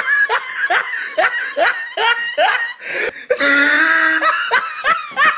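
A person laughing, high-pitched, in quick rising "ha" bursts about two or three a second, broken about three seconds in by a long held squeal before the bursts resume.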